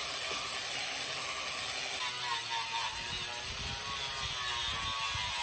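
Angle grinder with a crimped-wire wheel running against the car body's sheet metal, scrubbing off factory sticker residue and bumps: a steady grinding whine with a harsh hiss, the whine changing pitch about two seconds in.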